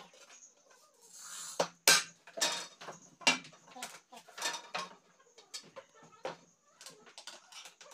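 Irregular sharp knocks and light clinks as thin wooden strips are handled and set down against the glass panes and wooden frame of a window sash.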